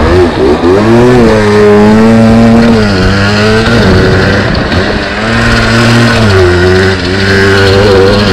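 Dirt bike engine running under throttle, its pitch climbing, holding, and falling back several times as the rider accelerates and eases off.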